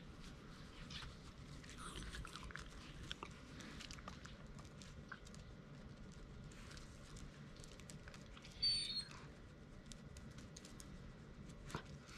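Faint scratching and light pattering from Shiba Inus' paws and fur being stroked, with one short high-pitched chirp, falling in pitch, about eight and a half seconds in.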